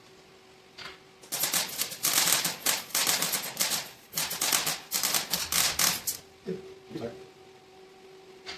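Welder laying plug welds on a truck frame: a dense, irregular crackle in several short runs with brief pauses between them, starting about a second in and stopping about two seconds before the end.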